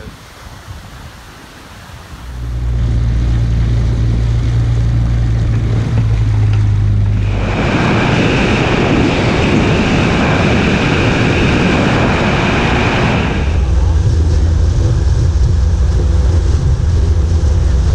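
A boat engine comes in about two seconds in and runs steadily, with a loud rush of water and wind for several seconds in the middle as the craft moves across the reservoir, then the steady engine hum again.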